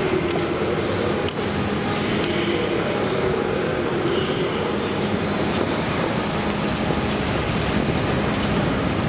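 Steady hum and noise of a subway train standing at an underground metro platform, with a few faint clicks.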